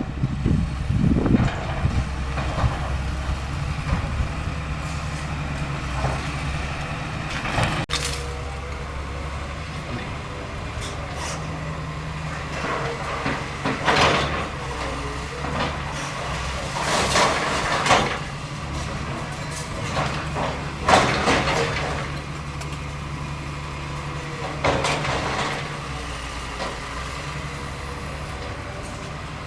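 Caterpillar 325L excavator's diesel engine running steadily, with several crunching crashes of breaking concrete and debris from the demolition; the loudest crash comes about two-thirds of the way through.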